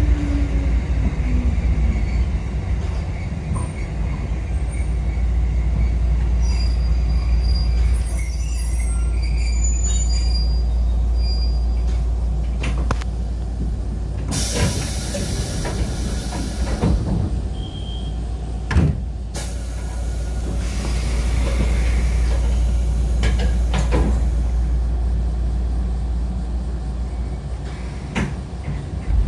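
Kotoden commuter electric train, with a steady low rumble and a whine that falls away over the first couple of seconds. Around the middle come two bursts of hissing, each a few seconds long, and a few clicks.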